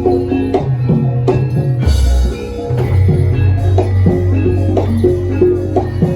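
Live jaranan accompaniment: a Javanese gamelan-style ensemble of drums and tuned gongs playing a steady beat of about three strokes a second over sustained ringing tones, with a deep low stroke about two seconds in.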